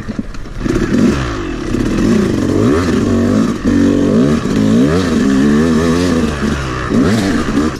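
Yamaha YZ250's two-stroke single-cylinder engine, freshly rebuilt top and bottom end, revving up and down again and again as the throttle is opened and closed on the trail, with quick wavering in pitch about five seconds in.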